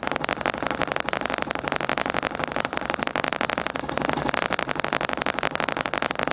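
Piston air compressor pump from an old Coast to Coast compressor, remounted on a propane tank, running steadily with a rapid even chatter of strokes as the tank nears its 130 psi cut-off.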